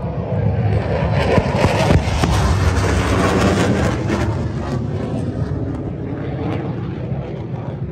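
Fighter jet passing overhead: the jet noise swells about a second in, stays loud and crackly for a few seconds, then slowly fades as it moves away.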